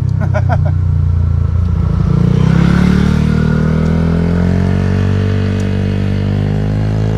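A motor vehicle engine running, its pitch rising as it speeds up about two seconds in, then holding and easing down slightly.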